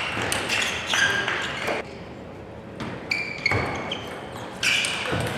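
Table tennis rally: a celluloid ball being struck back and forth, a run of sharp irregular pocks from bats and table. Short high-pitched squeaks come in the second half.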